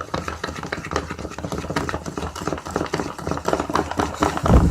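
A homemade shampoo-and-salt slime mixture being worked in a container: a quick, uneven run of small wet clicks and taps, with one heavy low thump near the end.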